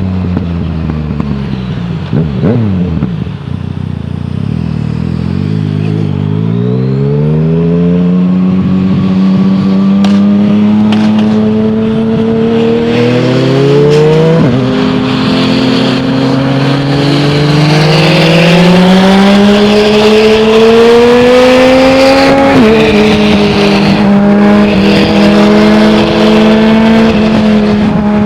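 Yamaha MT-09's three-cylinder engine through an Akrapovic full-system exhaust with no dB killer, recorded inside the rider's helmet. The engine note drops as the bike slows over the first few seconds, then climbs as it pulls away. The pitch falls sharply at two upshifts, about halfway through and again some way after, and then holds steady at cruising speed.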